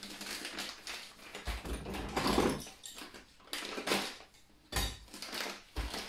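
Crinkly plastic coffee-bean bag rustling as it is picked up and handled, in irregular bursts with a few soft thuds, over a faint steady hum.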